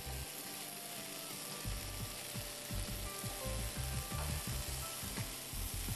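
Green peas sizzling as they are sautéed in a non-stick frying pan. The silicone spatula stirs them with irregular low knocks and scrapes against the pan, more of them from about two seconds in.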